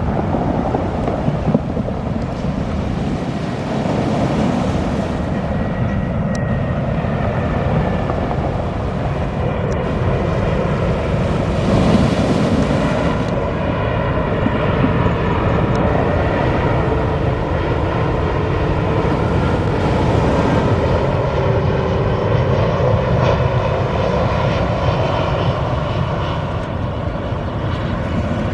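Airbus A340-300's four CFM56 turbofan engines running: a steady jet rumble, with several high whining tones coming in through the second half.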